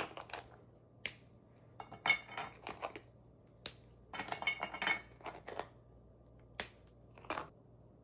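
Hard peanut brittle snapped into pieces by hand, with several sharp cracks, and pieces clinking and rattling into a glass dish in two short clusters.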